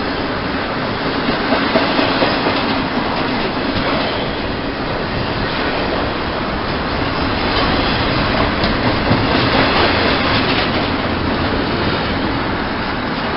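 A train going by, its wheels running on the rails in a steady, loud noise.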